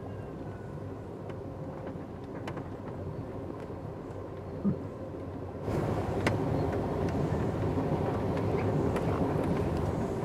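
Running noise of an Amtrak Superliner passenger train at speed, heard from inside the car: a steady rumble with scattered sharp clicks from the wheels and rails. There is one brief thump a little before the middle, and the rumble steps up suddenly in loudness just over halfway through.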